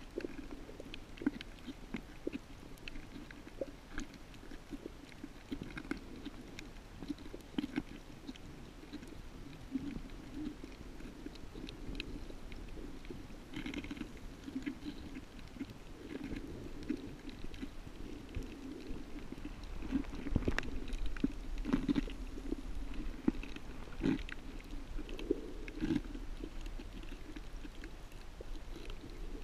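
Underwater sound picked up through a GoPro's waterproof housing: a low, muffled, gurgling rumble with scattered short clicks and crackles, growing louder and busier past the middle.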